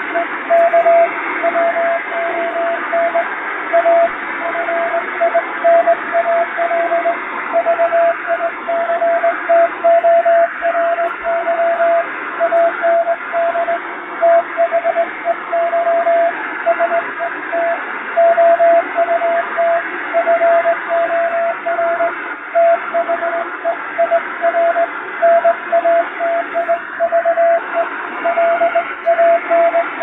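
Morse code (CW) keyed as a single mid-pitched beeping tone in dots and dashes, heard through steady shortwave radio hiss with added noise and fading, as a radiotelegraph signal sounds on a receiver. It is spelling out plain English text, a telegram-practice passage.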